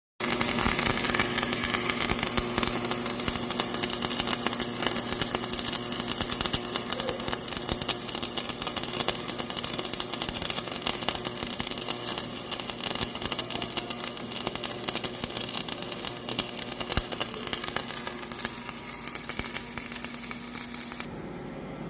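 Electric arc welding: a dense, steady crackle of the arc over a low, steady hum, cutting off abruptly near the end.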